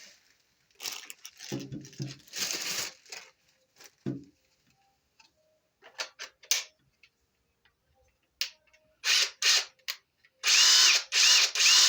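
Ridgid brushless cordless impact driver run briefly with no load, in three short, loud trigger pulls near the end, its motor whine rising and falling with each pull. Earlier come clicks and rustling as the tool is handled and readied.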